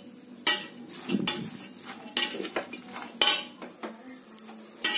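A metal slotted spatula scraping and clinking against the bottom and sides of an aluminium pressure cooker as sliced onions are stirred and turned, in irregular strokes about every half second to a second. Salt is being mixed into the onions as they sauté.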